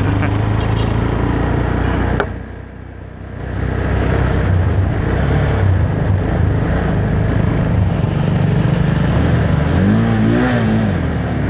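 Small motorcycle engine running steadily with wind and road noise while riding in traffic. The sound drops briefly about two seconds in, and near the end a pitch rises and falls as the engine revs.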